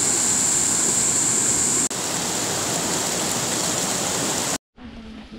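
Rushing water of a rocky stream running over boulders, a steady loud hiss. It breaks for an instant about two seconds in and cuts off near the end.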